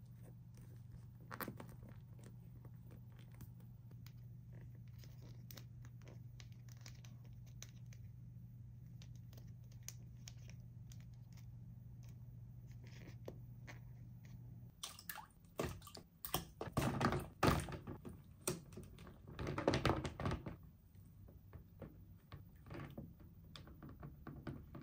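Toys and their packaging being handled by hand: scattered small clicks and taps, then a few seconds of louder rustling, crinkling and knocking about two-thirds of the way through. A faint steady low hum stops just before the louder handling.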